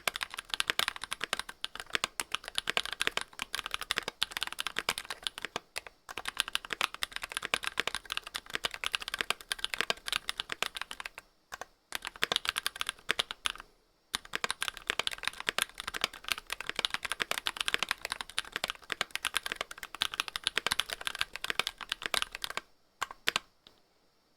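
Fast, continuous typing on a TS60 keyboard: a dense run of key clicks with two short pauses midway, ending a second or so before the end.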